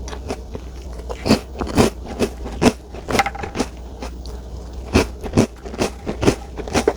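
A person chewing and biting into a chocolate dessert, close to the microphone: irregular sharp mouth clicks and smacks.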